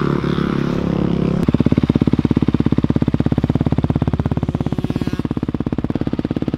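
A 2020 Honda CRF250R's single-cylinder four-stroke engine idling through a Yoshimura RS-9T full-system exhaust, heard close to the muffler. A little after a second in it turns louder and evenly pulsed, holding a steady idle with no revving.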